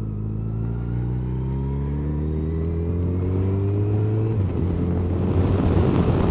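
Motorcycle engine accelerating, its note rising steadily in pitch for about four seconds, then the rising note breaks off and wind noise on the microphone grows louder as speed builds.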